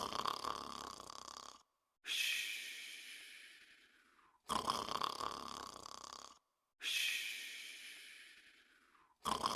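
Snoring in sleep, in a slow repeating cycle: a rough, fluttering snore of under two seconds, then a longer breathy breath that fades away. Two full breaths, and the snore of a third starts near the end.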